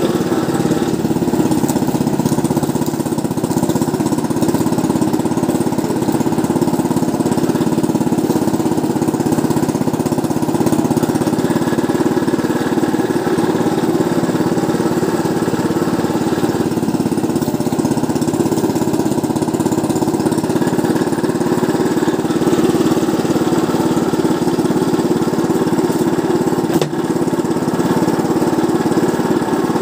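Small petrol engine driving a sugarcane juice mill, running steadily at a constant speed with the mill's rollers turning.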